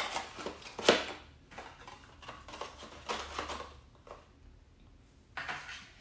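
Hands handling a cardboard product box and the parts in its tray: a run of light knocks, rustles and scrapes, the sharpest a little under a second in.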